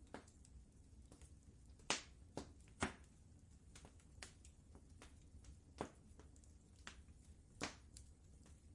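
Wood fire crackling, with scattered sharp pops over a low steady rumble; the loudest pops come about two seconds in, just before three seconds, and near the end.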